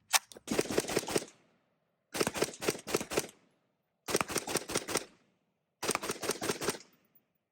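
Semi-automatic SAR-80 5.56 mm rifle fired in four quick strings of about six shots each, each string lasting about a second with short pauses between them.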